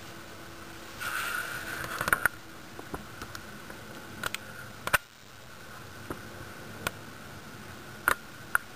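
Scattered sharp clicks and taps, about ten of them at uneven intervals: a juvenile wild turkey's beak pecking at suet held in a wire suet cage. There is a brief rush of louder noise about a second in.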